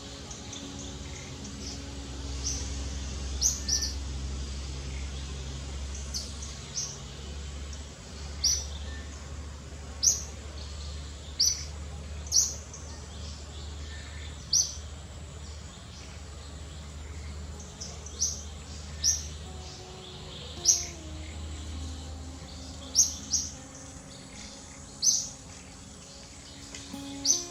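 A bird chirping: short, high chirps repeated every second or two, over a low steady hum and faint sustained tones.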